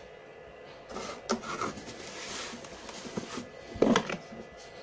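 Hard black plastic feed-trough hangers and covers being handled in a cardboard box: about a second in, a rustling, scraping stretch with light clicks as the pieces rub against each other and the cardboard, then a short, louder clatter of plastic knocks near the end.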